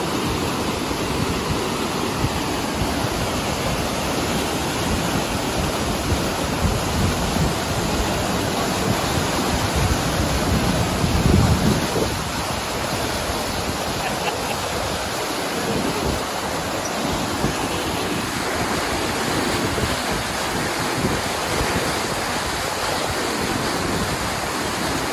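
Continuous rushing of the pumped water sheet on a surf-simulator wave ride, pouring over the padded ramp and breaking into white foam around the bodyboards. It is steady throughout, briefly louder about eleven seconds in.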